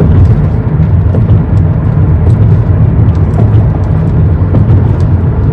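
Steady low rumble of a car driving along the road: road and engine noise from the moving vehicle.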